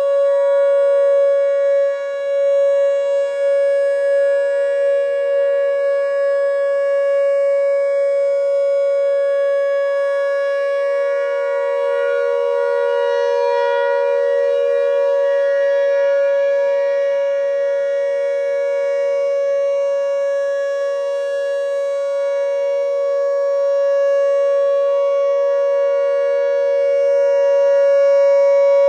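Whelen WPS-2910 electronic outdoor warning siren sounding its steady alert tone: one unbroken loud tone with many overtones, holding pitch throughout. Underneath it a second, slightly lower siren tone swells and fades, a Federal Signal 508 rotating siren sounding from farther off.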